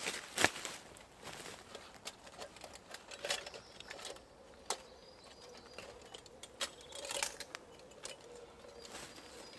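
Rustling of bags and camping gear being handled and stowed inside a hollow log, with scattered clicks and knocks. The sharpest knock comes about half a second in.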